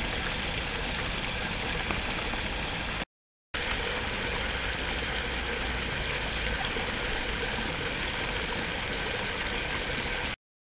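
Water pouring steadily from an inflow pipe into a sea turtle holding tank, splashing and churning the surface, with a low steady rumble beneath. It breaks off for a moment about three seconds in, then carries on the same.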